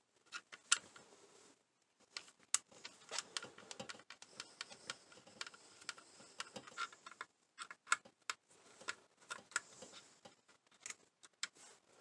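Irregular light clicks and taps of small parts and a screwdriver being handled while working on an RC truck.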